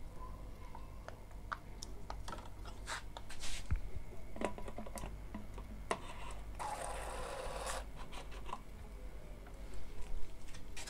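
Plastic clicks and scrapes of ink dampers and tubes being handled inside an opened Epson ink-tank printer, with a short rushing noise lasting about a second around seven seconds in.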